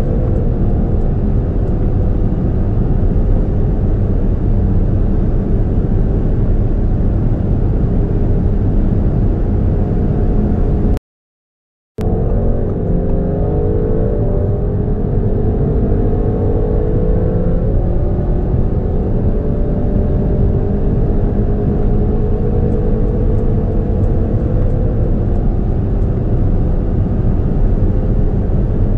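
2020 Audi RS6's twin-turbo V8 at full throttle, its note climbing slowly in fifth gear at high speed. It cuts out for about a second, then a new pull starts in third gear with the pitch rising, drops at an upshift about halfway through, and climbs again.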